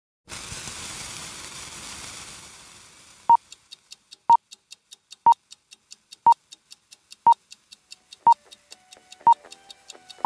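Film-leader countdown sound effect: a hiss that fades away over the first three seconds, then a short sharp beep once a second, seven in all, with faint ticking between the beeps. From about eight seconds in, faint steady musical tones join under the beeps.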